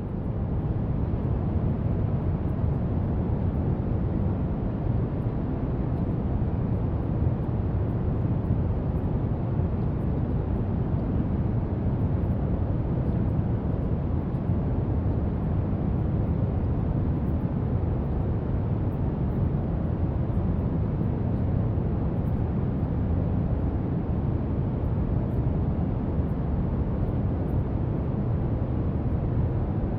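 Brown noise: a steady, deep rushing hiss, heaviest in the bass and thinning out toward the top, with no change throughout.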